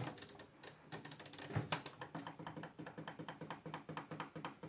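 Rapid, irregular light clicks and taps, several a second, from hands and tools working on a microwave's parts.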